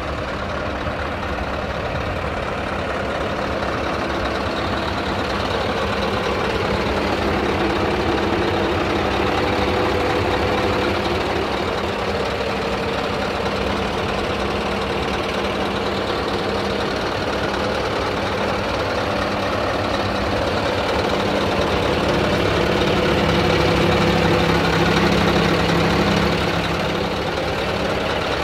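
Scania R tipper truck's diesel engine idling steadily, a little louder for a few seconds near the end.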